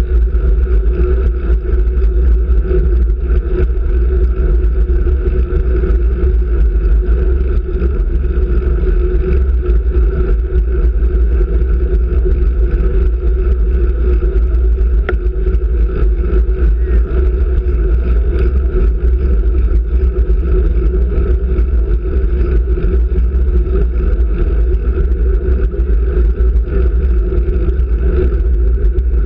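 Wind and road noise on a road bike's handlebar-mounted camera while riding at race speed on wet pavement: a steady, loud rumble.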